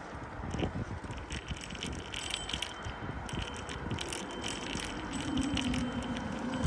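Bicycle rattling and clicking as it rolls along a paved street, with a low hum building near the end.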